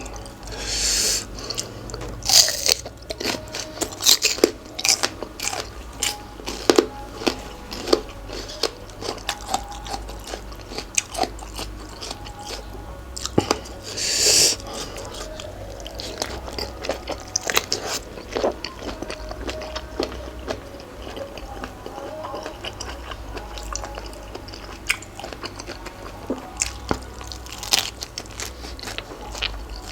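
Close-up eating sounds: a person biting and chewing crunchy food, a spicy Thai seafood salad with cuttlefish, with many sharp wet clicks and crunches. A few short hissing sounds come through, the loudest about halfway.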